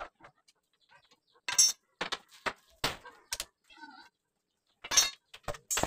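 Tools and exhaust parts clinking as the exhaust is taken off a Honda Supra X motorcycle: a handful of sharp, irregular metallic knocks.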